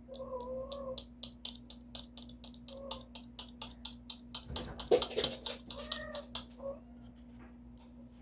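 A homemade DIY noisemaker clicking in a steady rhythm, about four clicks a second, for six seconds or so before it stops, with a few short wavering tones among the clicks.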